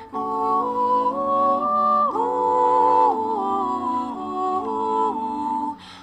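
Background music: a slow melody of held notes that step up and down in pitch, breaking off briefly near the end.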